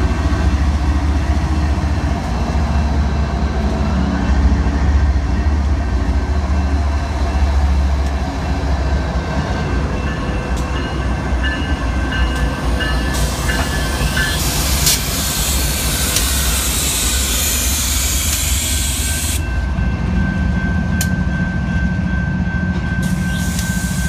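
BNSF GE diesel-electric freight locomotives passing at close range, their engines giving a deep steady rumble that eases about a third of the way through. For several seconds midway a loud hiss rises over it, and a thin steady whine comes in near the end.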